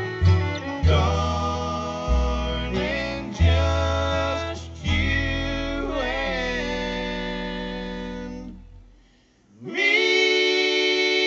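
Bluegrass band playing live, with vocal harmony over acoustic guitar, mandolin and upright bass. The tune closes on a long held chord that dies away about nine seconds in. After a brief gap, a new sustained note slides up into pitch and holds.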